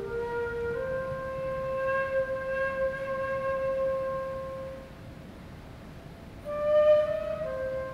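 A Chinese bamboo flute in a Chinese silk-and-bamboo chamber ensemble, playing a slow melody in long held notes. It fades for a second or so, then comes back louder on a higher note near the end.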